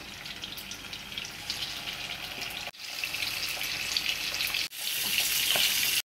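Masala-coated chicken pieces sizzling and crackling in hot oil in a frying pan. The sizzle breaks off sharply twice and is louder each time it resumes, as the pan fills with more pieces. It cuts off suddenly near the end.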